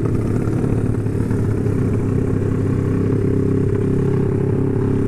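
Honda CB150R single-cylinder engine with a ported stock head, running at a steady engine speed through a BSS round aftermarket exhaust.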